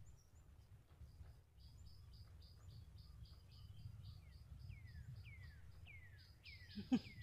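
Faint forest birdsong and insects: a steady rapid chirping about three to four times a second, joined about four seconds in by a series of falling whistled notes that come faster toward the end. A brief sharp sound near the end is the loudest thing.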